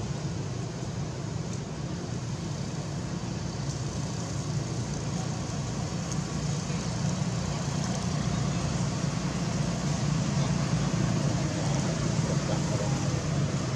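Steady low outdoor rumble with a faint hiss above it.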